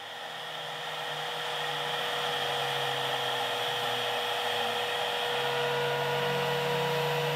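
CNC router spindle running steadily with a high whine while a 90-degree V-bit lightly scores a shallow line into birch plywood. It grows louder over the first two seconds, then holds steady.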